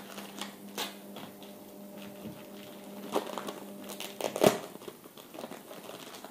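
Packaging of a pair of foot-liner socks being crinkled and torn open by hand: irregular rustles and clicks, loudest about four and a half seconds in.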